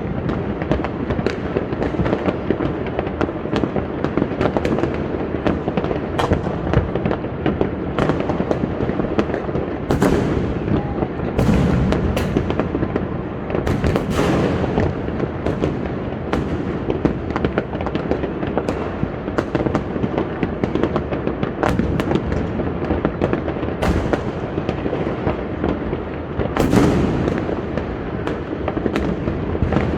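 Fireworks and firecrackers going off from many rooftops at once: a dense, continuous crackle of pops and bangs with louder individual blasts every second or so.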